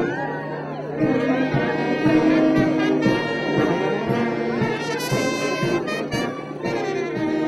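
Marching brass band playing, with held brass chords and a bright high note about five seconds in.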